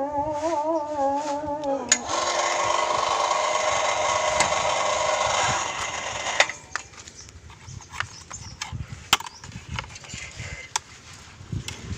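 Singing music for about two seconds, then a motorised machine runs steadily for about four seconds and stops, followed by scattered knocks and clicks.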